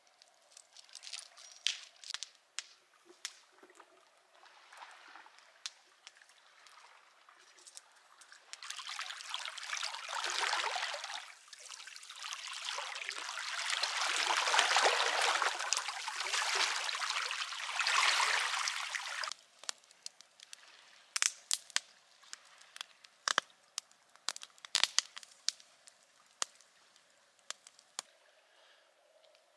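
Water rushing and sloshing for about ten seconds midway, swelling and easing. Scattered sharp crackles are heard before and after it.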